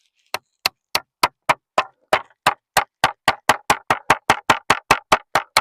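Hammer driving nails into timber: a run of about twenty sharp strikes that quicken from about three to about five a second.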